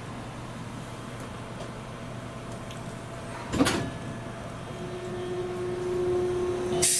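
Toyohashi Railway 780-series tram standing or creeping with a steady low electrical hum, broken by one sharp knock about halfway through. A steady tone comes in near the end, followed by a loud hiss right at the close.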